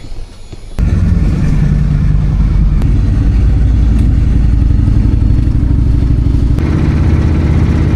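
Motorcycle engine running loud and steady, cutting in abruptly about a second in; its sound changes slightly near the end.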